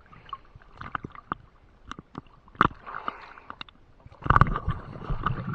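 Seawater sloshing and lapping against a waterproof camera housing held at the surface, with many small clicks and ticks from water and spray. About four seconds in, a louder, rumbling burst of splashing and gurgling sets in.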